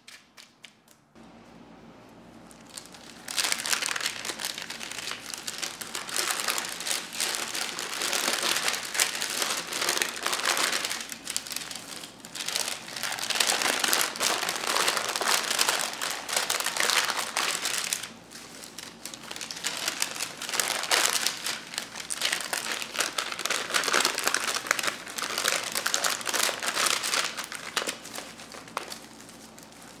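Thin plastic crinkling and the crackle of set white-chocolate-coated cereal mix as a plastic-covered hand breaks it into clusters, starting about three seconds in and going on in uneven handfuls.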